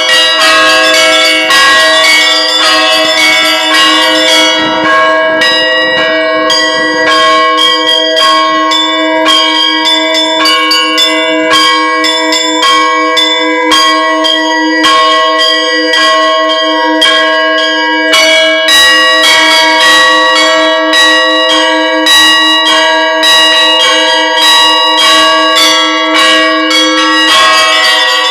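Bells ringing in a continuous run of rapid strikes, their tones ringing on and overlapping.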